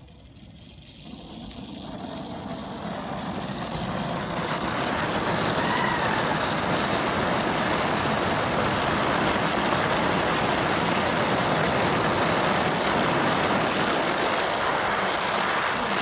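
Oxy-acetylene torch flame hissing, growing louder over the first few seconds and then holding a steady, even rush.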